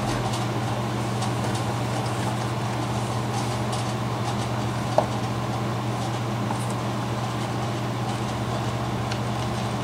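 Room air conditioner running with a steady low hum. Over it come faint scratchy ticks of thread being drawn through leather during hand-stitching, and one sharp click about halfway through.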